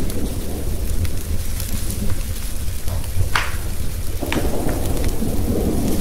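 A thunderstorm's steady rain with a continuous low thunder rumble, mixed with a wood fire crackling; two sharper crackles stand out about three and four seconds in.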